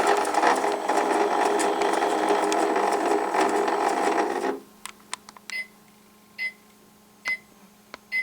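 Battery-powered toy washing machine's small motor whirring steadily as the drum spins, stopping suddenly about four and a half seconds in. A few light clicks and short beeps follow, the machine signalling that the wash cycle has finished.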